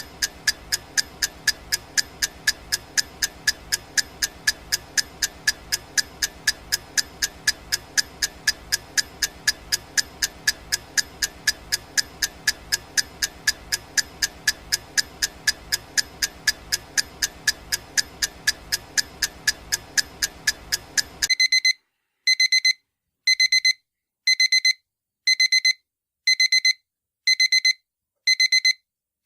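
Countdown timer ticking evenly, a few ticks a second over a faint steady background, then about 21 seconds in the ticking stops and an electronic alarm-clock beeping starts, about one high-pitched beep a second: the countdown has reached zero.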